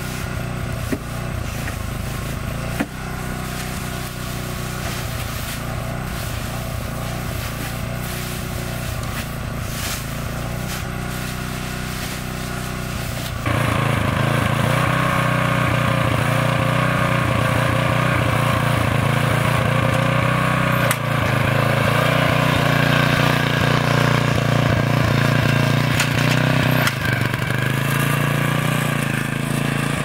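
An engine running steadily, turning abruptly louder about thirteen seconds in, with a couple of short knocks early on.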